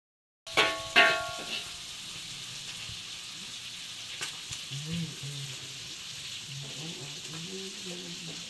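Chicken frying in a wok over a wood fire, a steady sizzle throughout. Right after a short silent gap at the start, two ringing metallic clanks sound as the wok is stirred.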